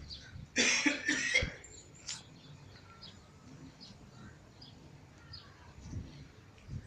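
A person coughing, a short harsh double cough about half a second in.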